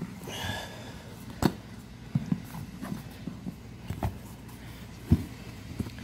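A deflated knobby mini bike tire being pressed down and worked by hand to break its bead from the steel rim: rubber rubbing and flexing, with scattered knocks and thumps, the sharpest about a second and a half in and about five seconds in.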